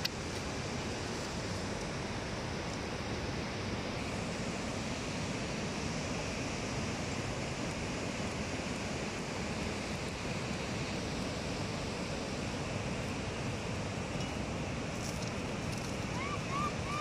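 Steady rushing noise of a fast mountain river, with a few short high chirps near the end.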